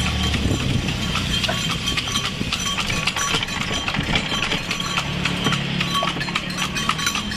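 Hooves of a delman horse, pulling a two-wheeled passenger cart, clip-clopping steadily on a paved road.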